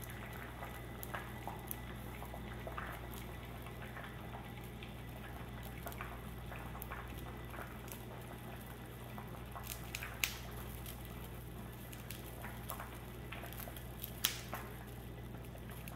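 Wooden chopsticks handling soft, wet slices of cooked beef and laying them in a ceramic bowl: small scattered clicks and soft wet sounds, with two sharper chopstick taps in the second half, over a steady low hum.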